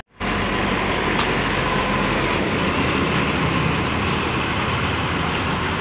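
Bus engine idling with a steady hum.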